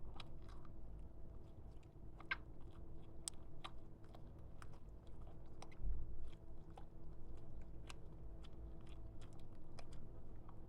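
Clear slime being kneaded and mixed by hand, giving scattered small sticky clicks and crackles, with a low thump about six seconds in.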